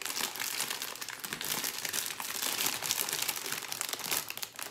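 Foil-lined snack bag of potato snacks crinkling and crackling as it is pulled open and handled, a dense run of crackles that fades out near the end.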